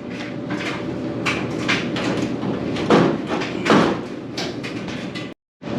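Sheet-metal top panel of a Speed Queen commercial washer being pushed upward, rattling and knocking in irregular clicks and clunks without lifting free, because screws to the coin box still hold it down.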